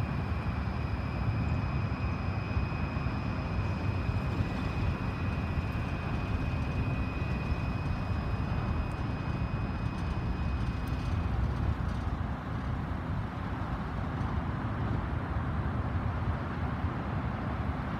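Freight train cars rolling past with a steady low rumble. Over it runs a steady high-pitched squeal that stops abruptly about eleven seconds in.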